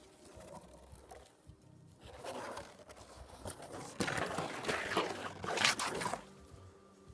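A rough, hissing noise that starts about two seconds in, grows loudest from about four to six seconds, and stops abruptly just after six seconds.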